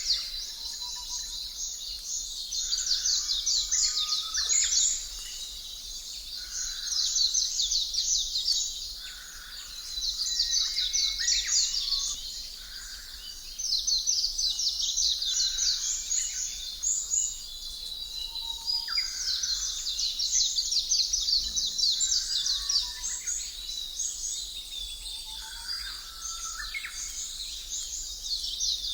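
Birdsong ambience: bouts of rapid, high chirping and trilling a few seconds long with short lulls between, and a few lower whistled notes.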